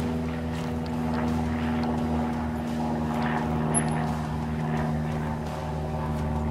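Steady, even drone of an engine running at constant speed, with no revving.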